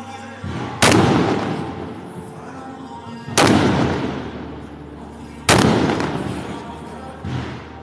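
Fireworks shells bursting: three loud bangs about two seconds apart, each dying away over a second or two, with smaller bangs just before the first and near the end.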